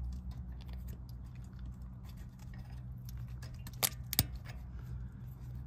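Small metallic clicks and ticks of a spring clip being pressed onto a brake pad retaining pin by hand, with two sharper clicks a little past halfway, over a low steady hum.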